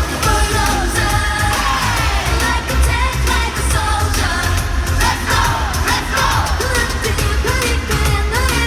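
Live K-pop performance: loud amplified pop music with a heavy bass beat and female group vocals singing.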